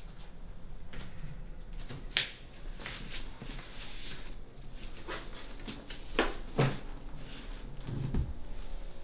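Scattered clicks, knocks and rustles of a person moving about a small room and handling things, the sharpest knock a little past halfway and a dull thump near the end, over a faint steady low hum.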